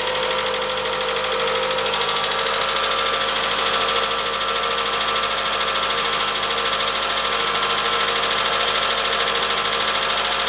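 Toyota 2AZ-FE 2.4-litre four-cylinder engine running steadily with a fast, even ticking clatter from the top end: the knocking valves the owner is complaining about.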